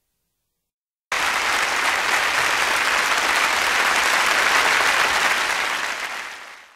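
A crowd applauding: dense clapping that starts abruptly about a second in, after silence, and fades out near the end.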